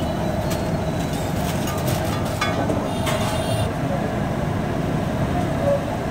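Steady busy street-stall noise over oil frying on a large iron tawa, with clinks and scrapes of a metal spatula on the griddle and a short metallic ring about halfway through.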